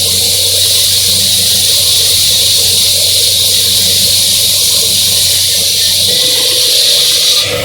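Husqvarna walk-behind concrete saw with a 26-inch blade cutting full depth into concrete under water: the engine runs under load beneath the loud, steady hiss of the blade in the cut. The hiss cuts off sharply near the end.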